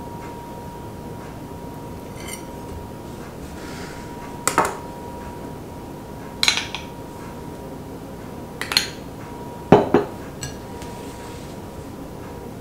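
Metal utensils clinking against a china plate and a small glass bowl as a slice of torte is set down and whipped cream is spooned onto it: about five short, sharp clinks, the loudest near ten seconds in. A faint steady hum runs underneath.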